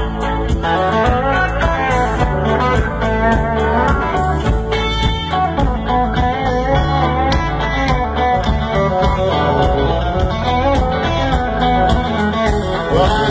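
Live band playing an instrumental passage, with electric guitar lines leading over bass and drums.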